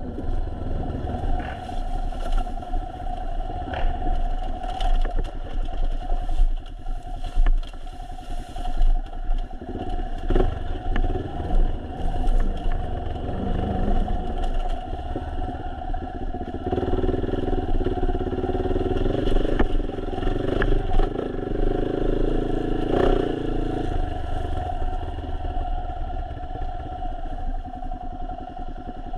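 Motorcycle engine running as the bike rides along a bumpy dirt trail, with scattered rattles and knocks from the bike over the rough ground.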